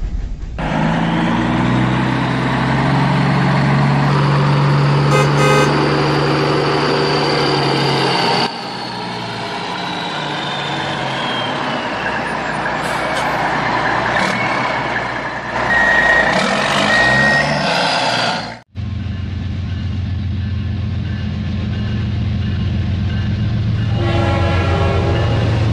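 A run of vehicle sounds: a long horn-like blast for about the first eight seconds, then engine noise with a slowly falling whistle-like tone and two short high beeps about two-thirds through. After a sudden break comes a steady train rumble.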